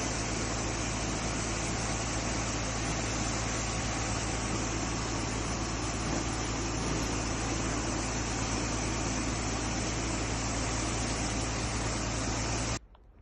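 VIGAN 120 portable pneumatic grain pump running steadily: an unbroken rushing noise over a constant low hum, cutting off abruptly near the end.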